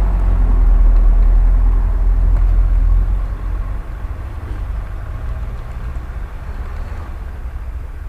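Mitsubishi L200 pickup's engine pulling through snow, loud at close range for about three seconds, then fading as the truck drives away.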